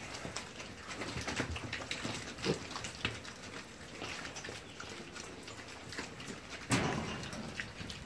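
A group of piglets rooting and moving about a pen, making many small scuffles, clicks and snuffling noises, with one sudden louder noise near the end.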